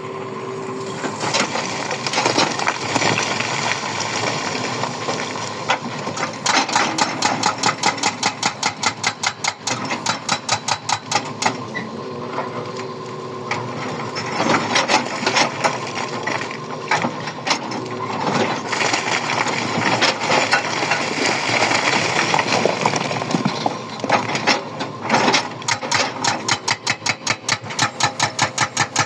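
Breaker hammer pounding rock in fast runs of several blows a second, each run lasting a few seconds, over a steady machine running underneath.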